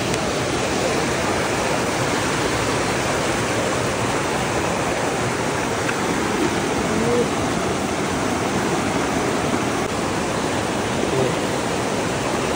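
Fast mountain river rushing steadily over rocks through white-water rapids.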